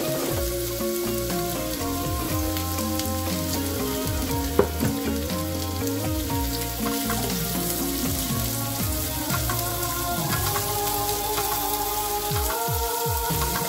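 Julienned carrots and onion sizzling as they fry in oil in a nonstick pan, with one sharp knock about four and a half seconds in and a spatula stirring them near the end. Background music plays along with the sizzling.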